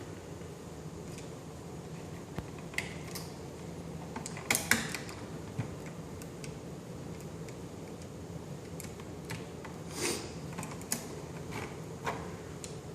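Scattered small clicks, taps and scrapes of a screwdriver and the metal light switch being worked as the wires are disconnected from the old switch's terminal screws. A steady low hum runs underneath.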